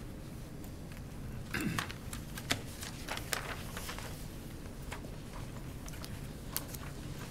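Room tone of a hearing room with a steady low hum, broken by scattered soft clicks and rustles of papers and photographs being handled.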